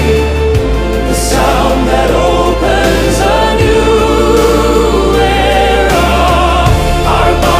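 Background music: a choir singing sustained chords over a deep, steady bass drone.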